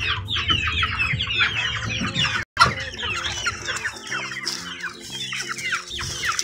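A flock of young chickens peeping together, many short overlapping calls that each slide downward in pitch. The sound cuts out completely for a split second about two and a half seconds in.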